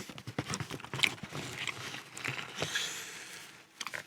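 Paper food wrapping rustling and crinkling in irregular crackles as it is handled and opened.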